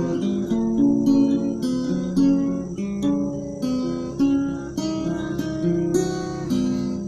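Acoustic guitar playing a strummed chord introduction, with no singing yet.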